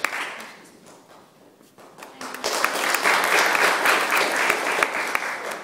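Audience applauding: a round of clapping fades away in the first second or so, then a fresh round starts about two seconds in and dies down near the end.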